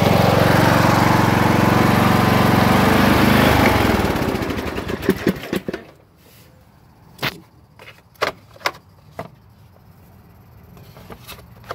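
Briggs & Stratton 17.5 hp engine on a riding lawn mower running steadily, then shut off about four seconds in and sputtering to a stop within two seconds. After it stops, a few sharp clicks and knocks as the plastic hood is handled.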